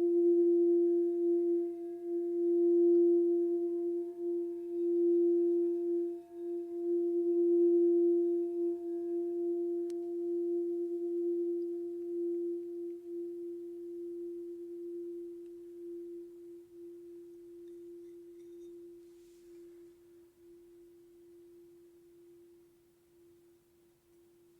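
Quartz crystal singing bowl ringing out with one steady low tone and a fainter higher tone above it, pulsing slightly, then slowly dying away to almost nothing.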